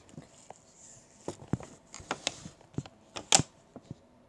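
Handling noise: a scattered series of light taps and clicks, with the sharpest click a little past three seconds in.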